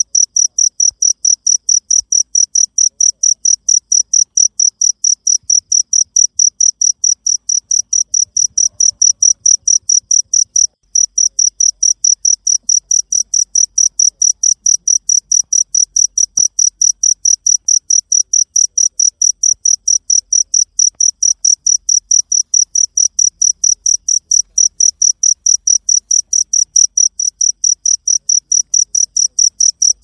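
A cricket chirping steadily at night: high-pitched, evenly spaced chirps, about three or four a second, with one brief break about a third of the way through.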